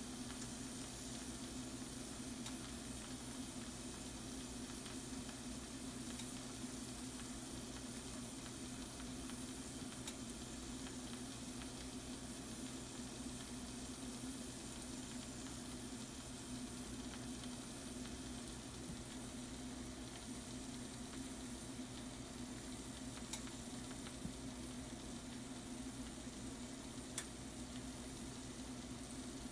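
Shrimp and mushrooms sizzling in a frying pan: a steady, even sizzle with a few faint pops near the end, over a steady low hum.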